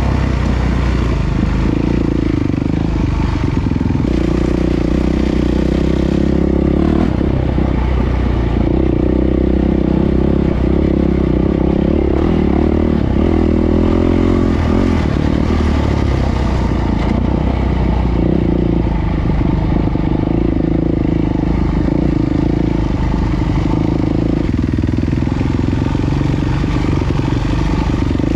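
450 cc single-cylinder four-stroke dirt bike engine running under way, its revs rising and falling with throttle and gear changes. Wind rushes over the microphone, with clatter from the bike over the rough dirt track.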